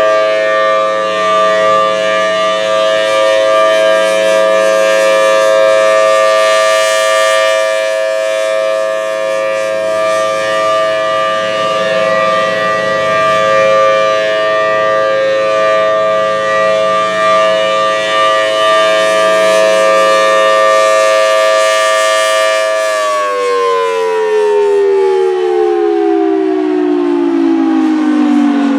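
Federal Signal Thunderbolt 1000T tornado siren sounding a steady tone of several notes at once, swelling and fading gently in loudness. About 23 seconds in it shuts down, and its pitch falls steadily as it winds down.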